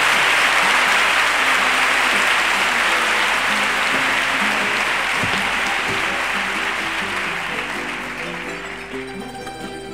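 Theatre audience applauding, dying away over the last few seconds, with acoustic guitars plucking notes underneath that come through more clearly as the applause fades.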